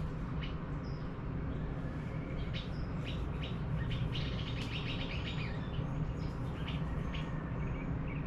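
Small birds chirping: many short, high chirps and a few brief whistled notes, busiest in the middle of the stretch, over a steady low background rumble.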